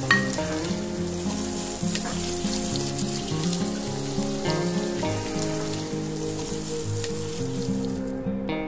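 Sliced onions deep-frying in hot oil in a pan, a steady sizzle that cuts off suddenly near the end. Soft background music plays under it.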